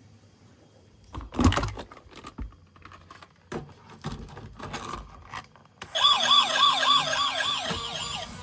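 Plastic toy being handled, with scattered clicks and scrapes. About six seconds in, a toy emergency vehicle's electronic siren starts, a loud fast up-and-down wail repeating about three times a second.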